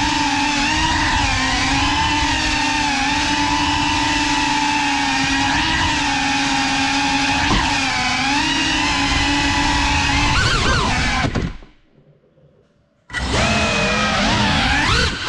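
GEPRC Cinelog35 cinewhoop's motors and ducted propellers whining steadily, the pitch wavering up and down with the throttle. About eleven seconds in the whine slides down and stops for under two seconds, then starts again abruptly.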